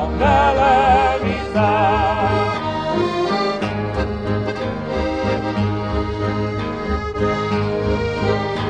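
A recorded habanera song led by accordion over a steady bass line. In the first couple of seconds, held notes with a wavering vibrato ring out before the accordion carries the tune on.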